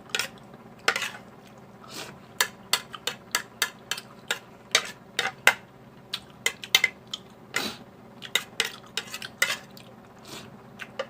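Cutlery clinking and scraping against a plate while someone eats, in many short, irregular clicks, a few a second.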